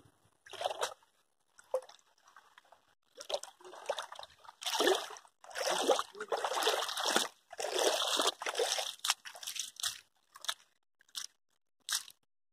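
Footsteps squelching and splashing through shallow muddy water and waterlogged ground, coming at uneven intervals of about a second.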